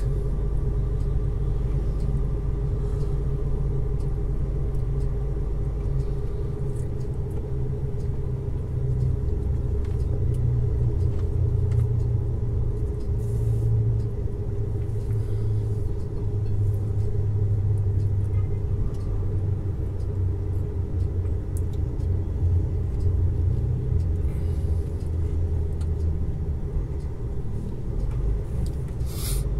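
Heavy semi-trailer truck's diesel engine and road noise as it drives along at steady speed, heard from inside the cab as a low, steady drone. A brief hiss comes near the end.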